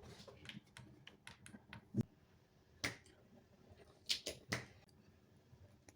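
Irregular small clicks and taps, with louder knocks about two, three, four and four and a half seconds in.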